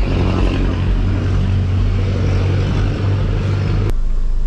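A vehicle engine running, a steady low hum. Just before the end it cuts off abruptly to a different engine rumble heard from inside a van's cab.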